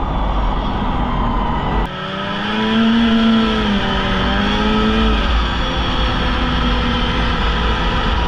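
Polaris Indy snowmobile engine under way, its pitch rising and falling as the throttle is worked a couple of seconds in, then running steadier.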